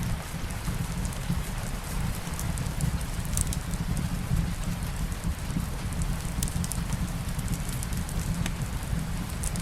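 Steady light rain mixed with a crackling wood fire in a fireplace: a continuous low rumble and hiss with scattered sharp crackles and drip ticks.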